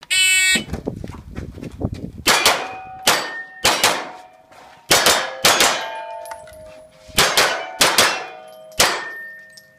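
A shot timer's start beep, then a rapid string of pistol shots, mostly in quick pairs. Steel targets ring after hits.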